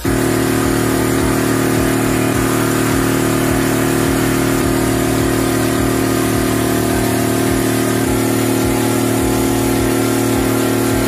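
Boat engine running at a steady, unchanging speed, a continuous low hum with a noisy rush above it.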